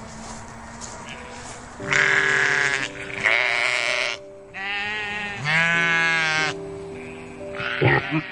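An animal calling: four long, wavering pitched calls of about a second each, then a few shorter calls near the end.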